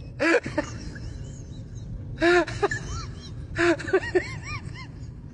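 A person laughing in wheezing, breathless bursts, three times, each a gasp of breath with short squeaky voiced 'ha's.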